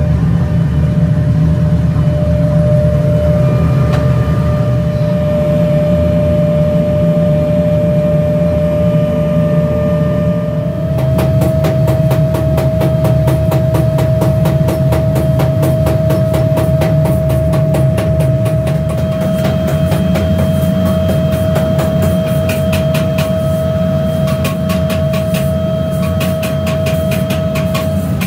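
Workshop machinery running with a steady low hum and a held whine. About eleven seconds in, the whine steps up slightly in pitch and a fast, dense clicking joins it.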